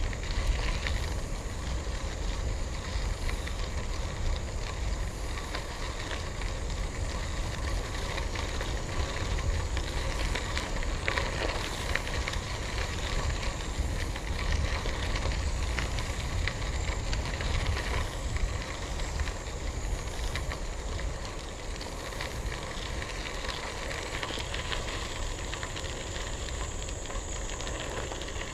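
Bicycle tyres rolling over a gravel trail, a steady crunch of fine grit clicks, with low wind rumble on the microphone.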